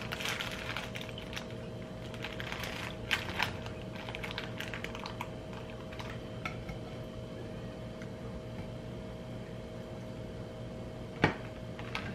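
Light, scattered clicks and rustles of food being handled on a kitchen counter: a zip-top plastic bag and a metal mesh strainer moved over a glass container. There is a sharper click near the end, and a steady faint hum runs underneath.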